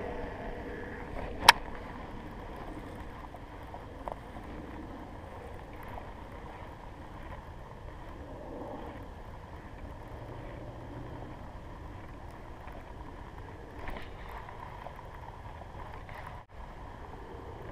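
Steady outdoor wind noise on the microphone while a baitcasting reel is worked. One sharp click comes about a second and a half in, and a fainter tick follows a few seconds later.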